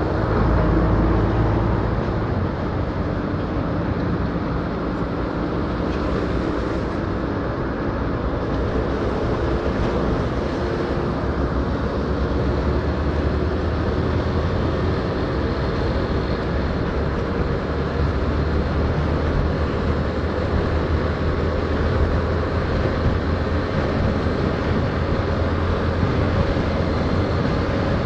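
Yamaha Fazer 150's single-cylinder four-stroke engine running at a steady cruise under wind and road noise, heard from the moving motorcycle.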